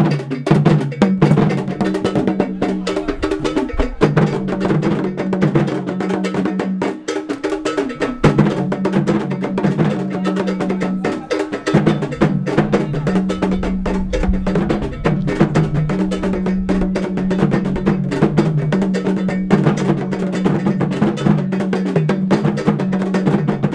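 Drum-led Ghanaian music: dense, rapid percussion strikes over a low bass line that steps between a few notes.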